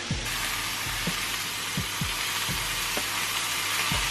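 Frozen pork chops searing in a hot frying pan: a steady sizzle with scattered soft pops.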